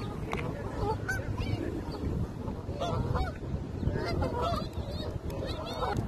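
A flock of Canada geese honking: many short calls, scattered and overlapping, over a low background rumble.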